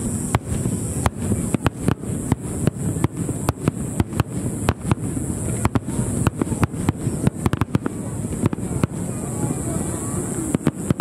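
Aerial fireworks going off in quick succession: a dense run of sharp bangs and crackles over a low rumble, closest together about seven seconds in.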